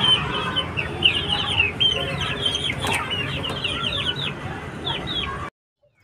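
Young Aseel chickens peeping: a rapid run of many short, high calls, each falling in pitch, over a steady background hum, cutting off suddenly about five and a half seconds in.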